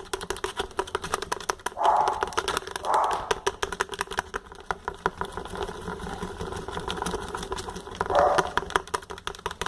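A sticky homemade slime mixture of glue and fabric softener being stirred in a small pot, giving a rapid, irregular run of small clicks and ticks.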